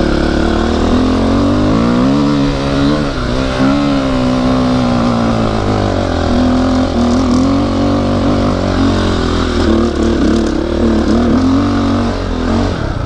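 2009 KTM 250 XC-F dirt bike's four-stroke single-cylinder engine pulling hard under load up a steep dirt hill climb. The engine note rises and dips repeatedly as the throttle is worked for traction, steadier through the middle.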